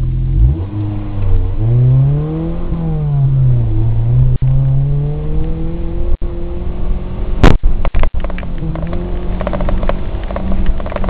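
Suzuki Samurai's engine revving under way, its pitch rising and falling several times in the first half as it climbs and eases through the gears. About seven and a half seconds in there is one loud bang, and rattling follows to the end.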